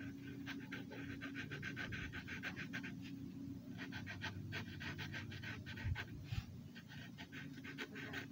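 Felt-tip marker rubbing back and forth on paper in quick short strokes, about eight a second, in runs of a second or two with brief pauses. A faint steady hum sits underneath.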